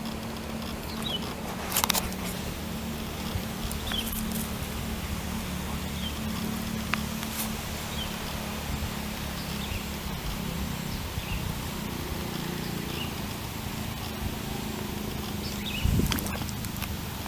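Outdoor ambience: a steady low hum under a noise haze, with short faint high chirps every second or two. Two louder knocks come, one about two seconds in and one near the end.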